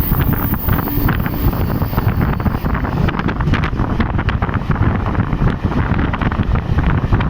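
Wind buffeting the microphone from a moving train, over the train's low running rumble, with many short irregular knocks throughout.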